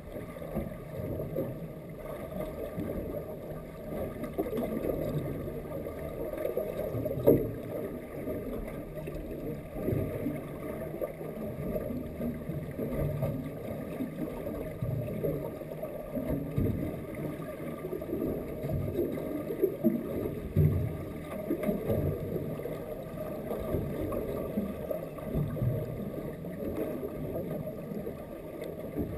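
Muffled underwater noise heard through a GoPro's waterproof housing: a dull low rumble of moving water with irregular soft knocks, one sharper knock about seven seconds in.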